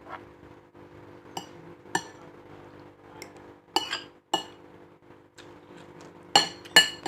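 Spoon clinking against a plate while fried rice is eaten: a handful of sharp, ringing clinks spaced irregularly, the two loudest close together near the end.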